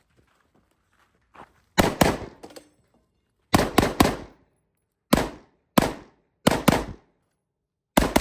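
Rifle shots fired in quick strings during a practical shooting stage: about eleven shots, mostly in fast pairs and a triple, with pauses of about a second between groups.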